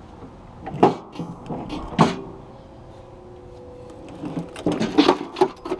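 Steel mowing deck of a Walker mower being pulled off the tractor, metal clanking against metal: a sharp clank a little under a second in, another about two seconds in, then a quick run of knocks near the end.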